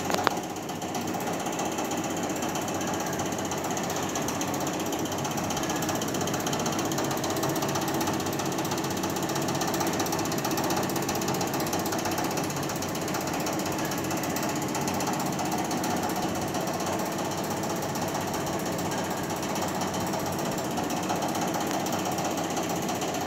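Split air conditioner's outdoor unit running steadily: the condenser fan spinning and the 1.5-ton rotary compressor working, a constant mechanical running noise. A single sharp click right at the start.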